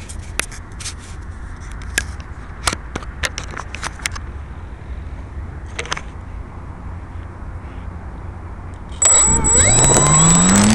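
Scattered knocks and clicks over a low rumble, then about nine seconds in the model J3 Cub's motor starts suddenly and spools up, its pitch rising and then holding, with a high whine on top.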